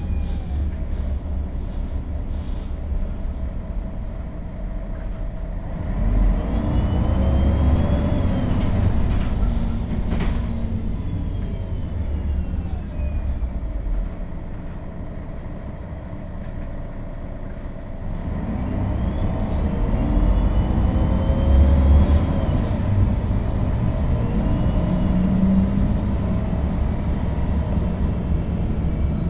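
Interior sound of a 2001 MAN NL 263 low-floor city bus driving: the diesel engine and driveline drone throughout. Twice the bus pulls harder and a high whine rises and then falls away, with a quieter, steadier stretch in between.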